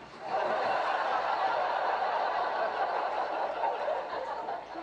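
Sitcom studio audience laughing, a sustained wave of crowd laughter following a punchline.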